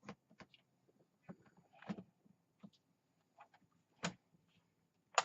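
Scattered light clicks and knocks of a laptop battery being handled and fitted into the laptop, with two sharper clicks about four seconds in and near the end.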